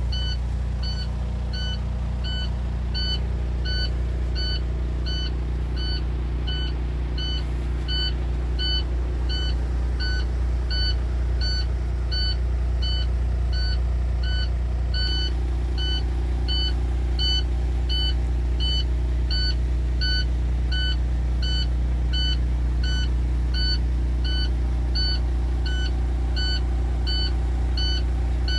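MaxxForce diesel engine of an International ProStar+ truck idling steadily, heard from inside the cab, with a dash warning chime beeping about twice a second.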